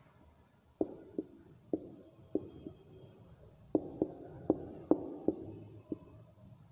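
Marker pen writing on a whiteboard: a string of about a dozen short taps and light scrapes as the tip strikes and drags across the board, coming closer together in the second half.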